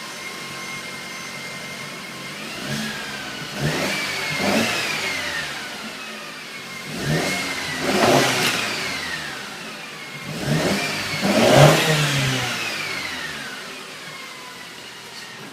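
Mercedes C250's turbocharged four-cylinder engine idling and then revved three times, each rev rising in pitch and falling back to idle.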